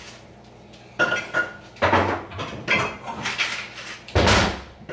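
Pots, pans and utensils clattering as cookware is handled and set down, a string of separate knocks with a heavier thump near the end.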